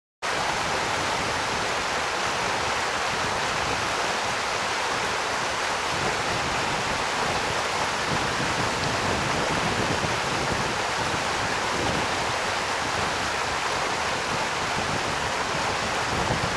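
Stream water rushing and splashing over rocks in a small cascade, a steady, even rush.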